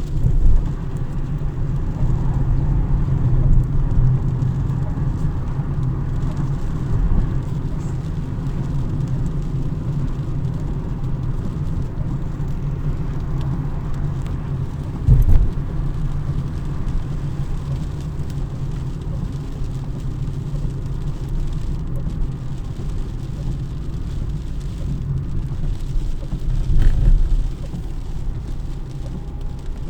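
Steady low rumble of car road noise, with a few brief louder thumps: one near the start, one midway and one near the end.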